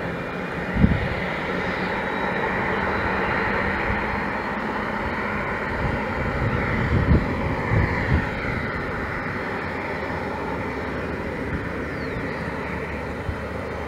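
Boeing 767-300 freighter's jet engines running during pushback by a tug: a steady rush with a faint high whine. A few low bumps of wind on the microphone come about a second in and again around seven and eight seconds.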